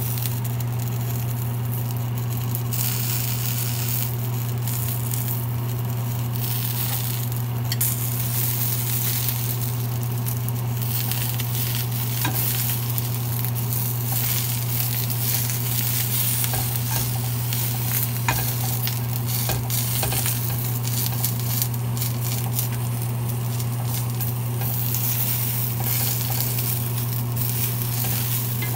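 Dried ancho chiles, tomato, onion and garlic sizzling as they toast in a nonstick frying pan, with a few sharp clicks of metal tongs against the pan as the pieces are turned. A steady low hum runs underneath.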